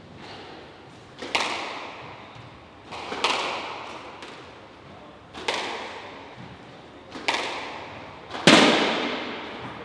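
A squash rally: five sharp cracks of the ball being struck by rackets and hitting the walls, about two seconds apart, each ringing on in the echoing court; the last is the loudest.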